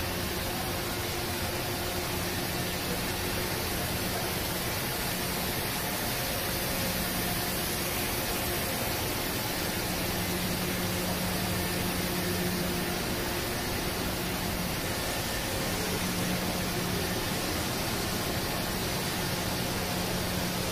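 Steady hiss and low hum of factory machinery and ventilation, with a low tone that fades in and out every few seconds.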